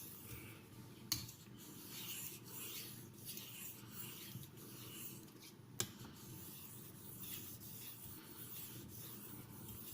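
Steel knife blade being stroked across a sharpening stone: faint, repeated scraping rubs of the edge on the stone, with a couple of short sharp clicks.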